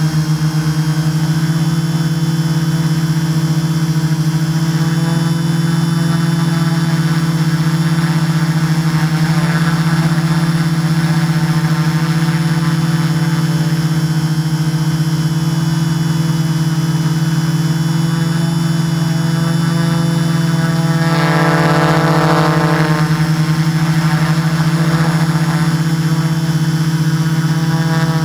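Camera drone's motors and propellers humming steadily and loudly, heard from its onboard camera, with a brief higher whine added about three quarters of the way through.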